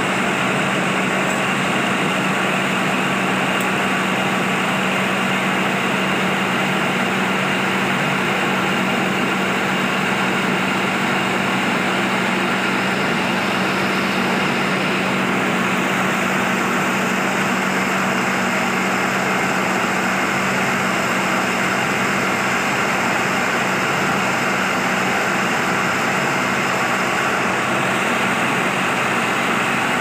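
Wood chipper driven by an electric motor, running steadily: an even, loud mechanical whirr with a constant low hum beneath it.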